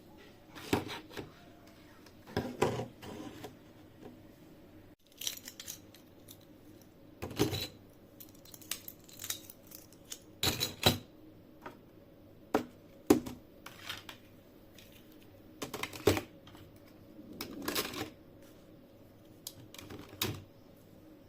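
Small household objects handled and set down by hand: irregular sharp clicks, taps and knocks with soft rustling between them, over a faint steady hum.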